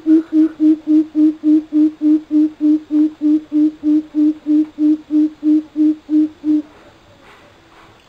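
Coucal (bubut) calling: a fast, even series of deep, low hoots, about three a second, all on the same pitch, that stops near the end.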